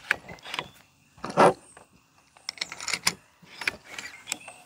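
Karma SLS .22 PCP air rifle being worked: sharp mechanical clicks of the side-lever action, with one louder short burst about a second and a half in and more clicks near the end.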